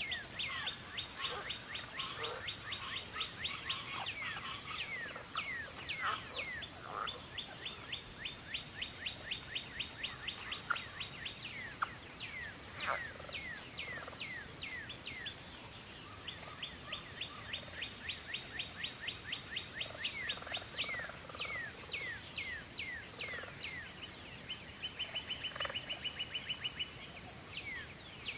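Dense, steady chorus of crickets at dusk, a continuous high shrill. Over it, birds call in runs of quick falling whistled notes, with a brief rapid trill near the end.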